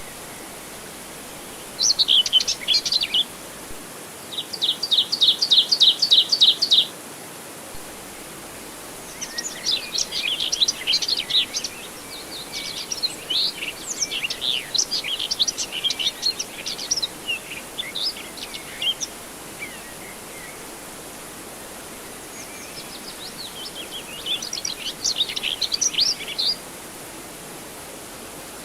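Tropical songbirds chirping in several bursts over a steady background hiss. About four seconds in, one bird gives a fast, even trill of repeated notes; the rest are quick, jumbled chirps.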